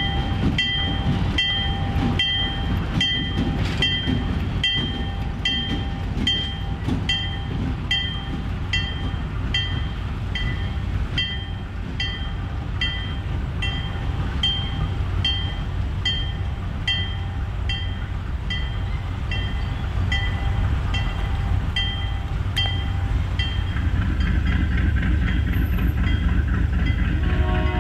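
Diesel-hauled passenger train rumbling past and fading away, with a railroad grade-crossing warning bell ringing about one and a half strikes a second until it stops a few seconds before the end. Near the end a new steady sound with several pitched tones comes in over the rumble.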